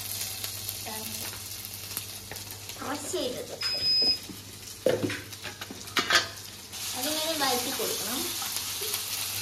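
Hot oil sizzling in a pan while it is stirred with a spoon, with a few sharp knocks of the spoon against the pan. The sizzle grows louder about seven seconds in.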